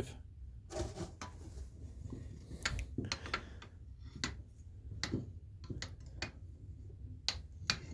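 Brass-and-glass drip oilers being handled and set down, giving a dozen or so irregular sharp clicks and light knocks of metal and glass on each other and a hard surface.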